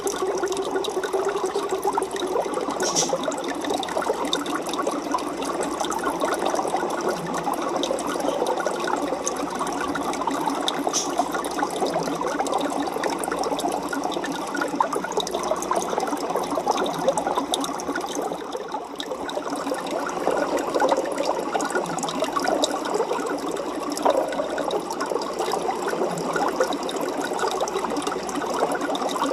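Aquarium water bubbling and splashing steadily, a dense crackle of many small pops, easing briefly about two-thirds of the way through.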